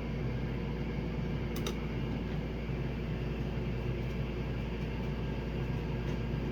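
Steady background hum and hiss, with a couple of faint clicks about one and a half seconds in.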